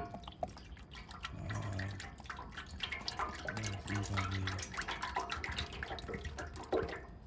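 Cooking oil pouring from a plastic jug into the empty pot of an electric deep fryer, splashing and trickling steadily, with a few deeper glugs from the jug.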